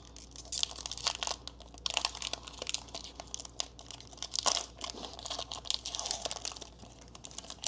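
Foil booster-pack wrapper crinkling and rustling as it is handled and opened, an irregular run of crackles throughout.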